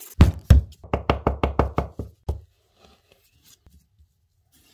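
A quick run of about ten sharp wooden knocks in the first two seconds, a plywood sign board being knocked against the workbench, then only faint small scuffs.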